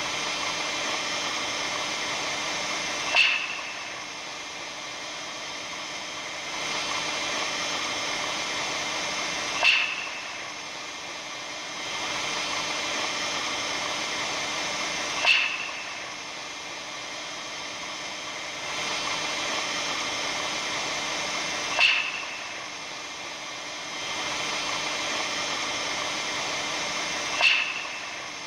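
Hissing, crackling noise presented as the sound of the aurora borealis, looping in a cycle of about six seconds: a louder stretch of hiss that ends in a short, sharp, high-pitched crack, then a quieter stretch of hiss. The crack comes five times.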